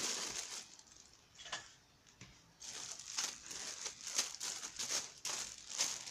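Plastic crinkling and rustling in irregular crackly bursts, sparse for a moment about a second in, then busy again from about two and a half seconds in.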